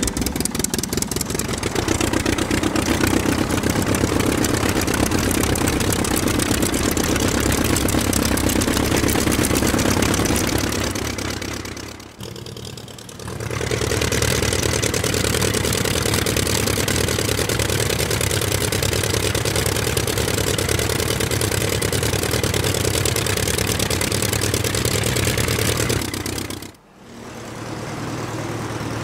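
Small electric motor of a homemade spinning-spring toy running steadily. It cuts out briefly about twelve seconds in and again near the end.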